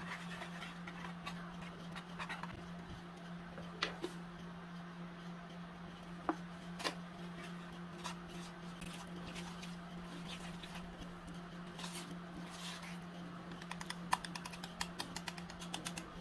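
Wire whisk clicking and scraping against the inside of a bowl, mixing white powder and water into a paste. The clicks come irregularly at first, then quicken into a rapid run near the end, over a steady low hum.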